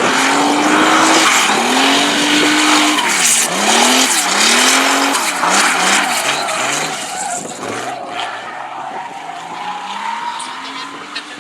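Drift car's engine revving up and down repeatedly over loud tyre screech as it slides sideways; the sound fades about halfway through as the car moves off, with the engine climbing again near the end.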